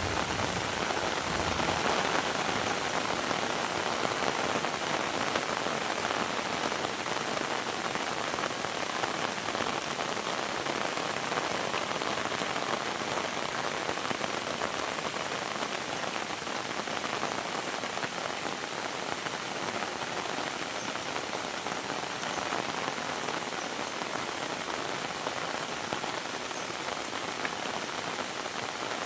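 Heavy rain falling steadily, a dense hiss of countless drops on surfaces, a little heavier in the first few seconds and easing slightly toward the end.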